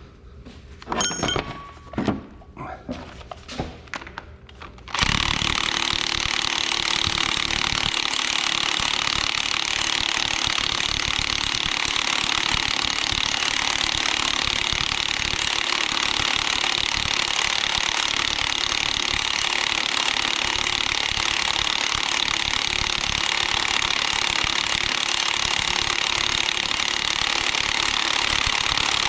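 Impact wrench hammering continuously as it drives the front pulley onto the Oliver 1855 crankshaft. It starts suddenly about five seconds in, after a few clinks of tool handling, and keeps up a loud, steady rattle.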